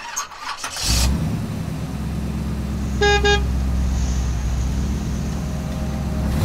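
Steady low rumble of a car driving, with two short horn toots about three seconds in.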